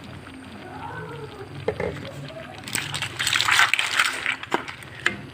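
Clams and squid being tipped into a pot of curry sauce: wet sloshing and shells knocking, with a louder noisy burst about three seconds in.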